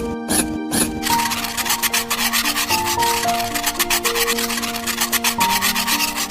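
Rapid rasping, scraping strokes, many a second, beginning about a second in and going on steadily, over background music.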